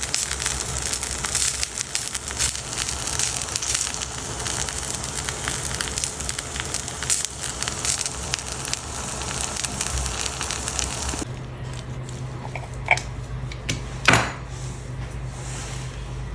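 Food frying in a pan, a dense sizzle full of small crackles, which stops abruptly about eleven seconds in. A low steady hum follows, broken by two sharp knocks near the end, the second one loud.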